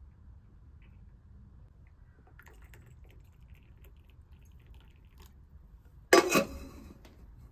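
Faint trickling and small clinks as hot water is poured from an aluminium kettle into glass tea glasses. About six seconds in comes a sudden loud knock that rings briefly and dies away.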